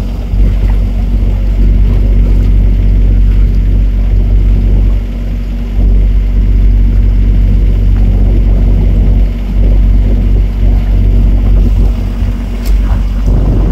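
Motorboat engine running steadily at cruising speed, a constant low hum under the rush of water and wind.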